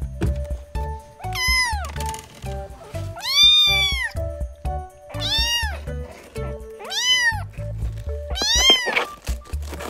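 Kitten meowing five times, each a high meow that rises and falls; the longest is the third, about a second long. Background music with a low beat plays underneath.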